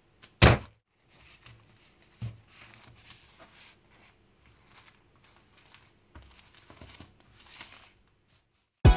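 Baking parchment crinkling and rustling in repeated short bouts as a rolled sheet of puff pastry is unrolled by hand on a table. A loud thump about half a second in and a lighter knock just after two seconds.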